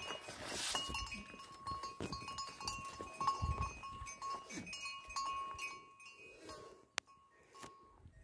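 Livestock calling, over a pattern of steady high ringing tones that keep starting and stopping.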